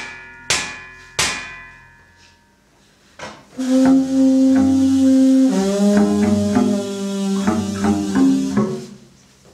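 Free-improvised music: three sharp metallic percussion strikes that ring and die away, then, after a brief lull, long held low notes on a wind instrument that change pitch a few times.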